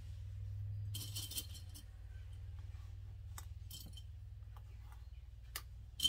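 Plastic sewing clips clinking in a small dish as they are picked out and snapped onto the fabric edge: a short rattle about a second in, then a few single sharp clicks.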